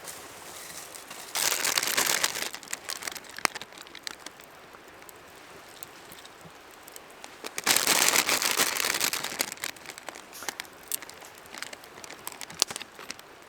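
Crinkling, rustling handling noise in two loud bursts, about a second and a half in and again near the middle, with scattered small clicks in between.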